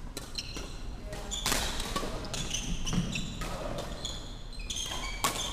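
Badminton rally on a wooden sports-hall floor: sports shoes squeak in short bursts and feet thud as the players move. A few sharp racket strikes on the shuttlecock come through, the loudest about one and a half seconds in and near the end.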